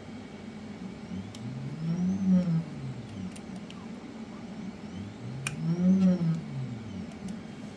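A small motor speeds up and slows down twice, its whine rising and then falling in pitch each time, over a steady low hum with a few light clicks.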